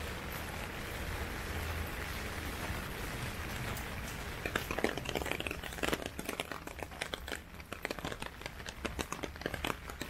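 Heavy typhoon rain falling as a steady hiss; from about halfway in, irregular close taps and crackles of drops join in.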